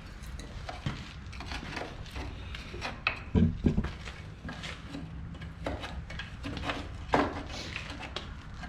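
A metal tool scraping and clinking irregularly as it digs packed dirt and sand out of a skid steer's track tensioner housing, with a couple of heavier knocks about three and a half seconds in.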